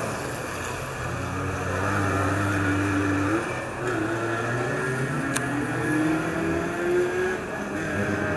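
Folcar race cars running on track, their engine notes climbing in pitch several times as they accelerate, over a steady background of engine noise. A single short click sounds a little past halfway.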